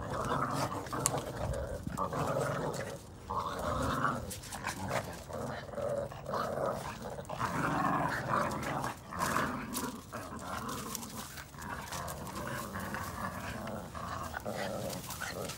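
Boston terrier puppies play-growling continuously as they tug at a chew ring between them. It is playful tug-of-war growling, not aggression.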